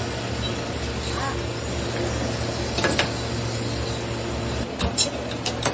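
Steady low machine hum in a workshop, broken by a few sharp clicks or knocks: one about three seconds in and a quick cluster near the end. Faint voices sit underneath.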